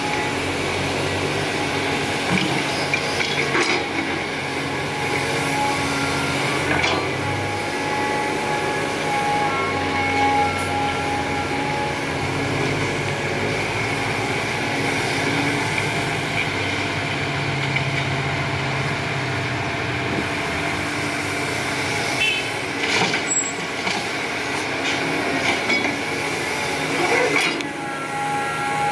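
CAT 320D hydraulic excavator's diesel engine running steadily under load as it digs and swings, with a few sharp knocks.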